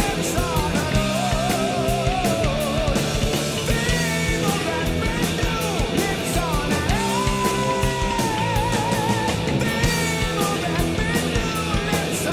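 Background music: a rock song with a singing voice over a steady drum beat, the voice holding one long note past the middle.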